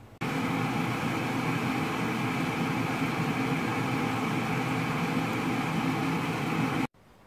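Steady hum and bubbling of an induction cooktop with fish simmering in sauce in a nonstick frying pan. It cuts in suddenly just after the start and cuts off suddenly near the end.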